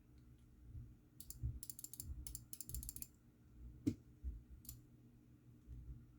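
Typing on an Iron180 custom mechanical keyboard with lubed Durock POM switches, a carbon-fibre plate and GMK keycaps: quick runs of crisp, fairly high-pitched keystrokes between about one and three seconds in, then a single louder key clack near four seconds.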